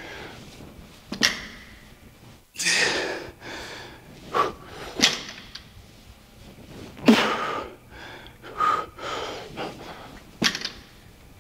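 A man breathing hard in forceful, hissing exhales during a set of barbell deadlifts, with a few sharp knocks spread through the set.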